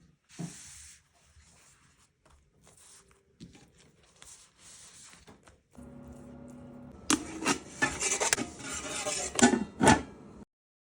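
Kitchen handling noises of food preparation: soft rubbing and scraping at first, then a low steady hum and a run of louder knocks and scrapes of dishes from about six seconds in, cutting off suddenly near the end.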